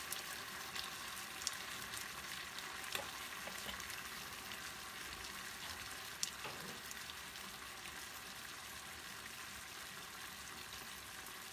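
Pasta and artichoke sauce sizzling steadily in a frying pan as it is stirred, with a few sharp clicks of the stirring utensil.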